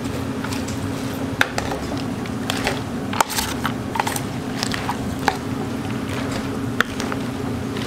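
Metal spoon stirring shredded cabbage, carrot and ham with beaten egg in a stainless steel bowl: wet crunching of the vegetables and scattered sharp clicks of the spoon against the bowl, over a steady low hum.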